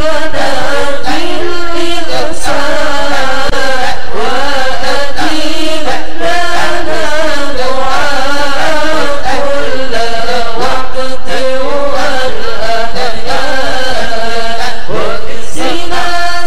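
Islamic devotional chanting (dzikir): a prayer of supplication sung in a continuous, ornamented melodic vocal line.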